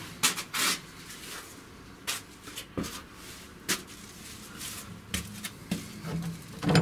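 Slow footsteps and scuffs going up stairs: irregular sharp knocks about a second apart, with rustling in between.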